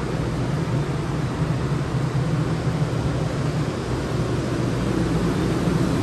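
Steady running noise of a JR West 500 series Shinkansen, a low hum under an even rushing hiss, heard inside the vestibule between cars.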